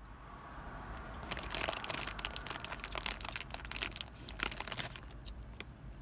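Crinkling and crackling of something being handled close up, with a dense run of sharp clicks that is heaviest through the middle.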